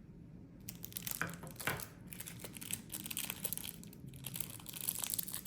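Adhesive tape being peeled and handled: a string of small crinkling crackles starting about half a second in.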